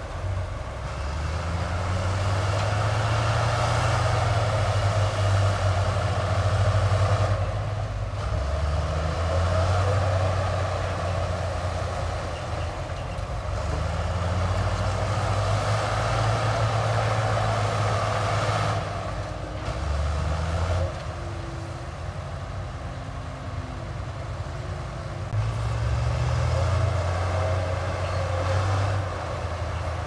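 Heavy diesel engine of construction equipment running under varying load. It swells and eases several times, dropping back for a few seconds just past the middle, with a steady mechanical clatter over the engine note.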